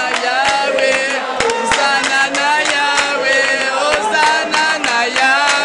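A group of worshippers singing together in chorus, with hand clapping.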